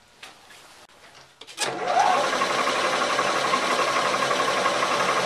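Milling machine spindle starting about a second and a half in after a few light clicks, then running steadily as a twist drill bores a hole in a steel clamp plate held in the vise.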